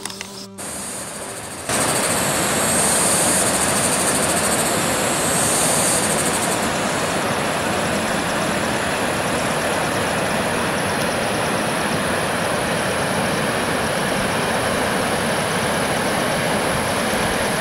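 Steady loud rushing noise. It starts abruptly about two seconds in and cuts off abruptly near the end, with a high hiss on top for the first few seconds.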